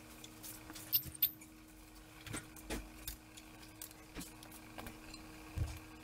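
Light metal clinks and taps, scattered and irregular, as an automatic transmission hung on a chain is worked into place on a jack against the engine, over a faint steady hum.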